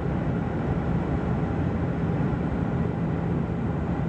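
Steady drone of a Bombardier Q400's twin Pratt & Whitney PW150A turboprop engines and six-blade propellers heard inside the passenger cabin: a constant low hum under an even rushing noise.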